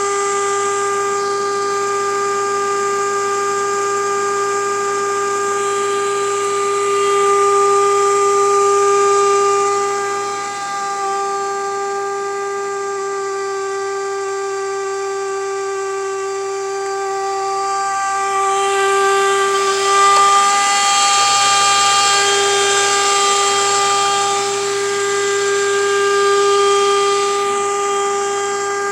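An unidentified steady whine from a 2011 Nissan Maxima, held at one unchanging pitch throughout. A rushing hiss swells in and out over it a few times.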